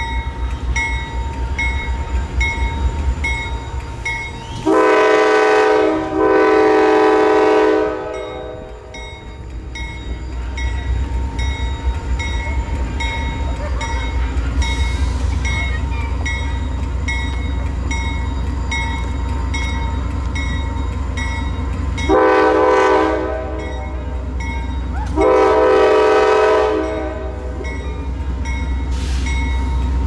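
A CSX diesel freight locomotive's multi-chime air horn sounding two long blasts about five seconds in, then a short blast and a long blast in the last third. Under the horn, the locomotive's diesel engine rumbles steadily and grows louder from about ten seconds in as the train pulls ahead.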